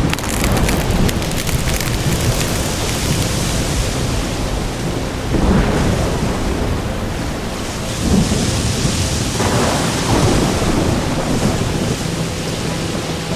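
Thunderstorm: heavy rain hissing steadily, with thunder swelling up about five and again about eight seconds in.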